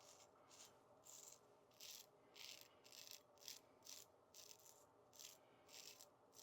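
Faint, soft rubbing or wiping strokes, about two a second and irregular, as shaving gear is handled and cleaned up after the shave.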